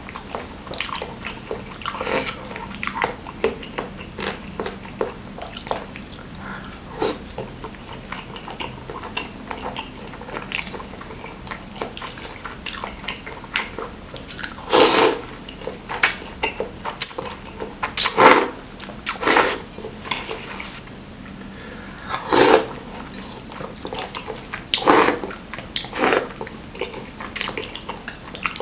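Close-miked wet chewing and slurping of saucy noodles, eaten from a fork, with several louder slurps in the second half.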